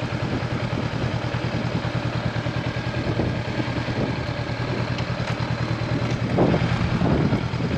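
Honda CB500X's parallel-twin engine running steadily, with a brief swell about six and a half seconds in.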